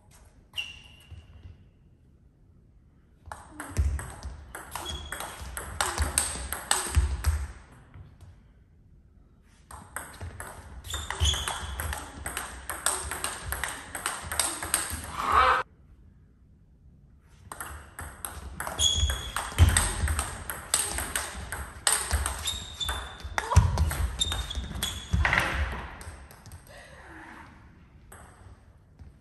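Table tennis rallies: a plastic ball struck back and forth with rubber-faced bats and bouncing on the table in quick, regular clicks. There are three long runs of hits with short pauses between them.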